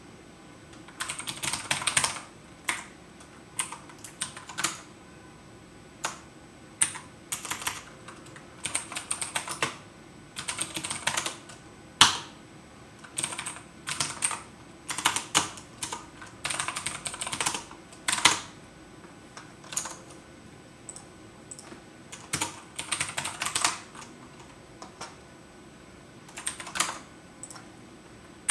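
Typing on a computer keyboard: short bursts of rapid keystrokes separated by pauses, with a few single, sharper key presses between them.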